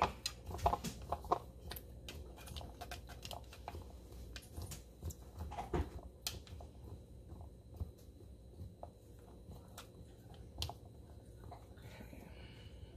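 Raw green beans being pushed down into a glass canning jar through a plastic funnel: faint crunches and small clicks of beans and fingers against the glass and funnel. They come thick in the first second or so, then only now and then.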